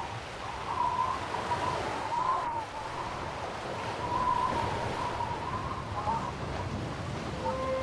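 Sea surf washing, with wind; a thin wavering high tone rises and fades several times over it.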